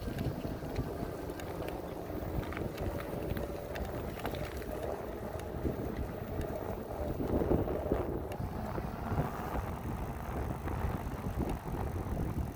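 Wind rushing over the microphone of a moving e-bike, a steady low rumble with faint road and drivetrain noise underneath.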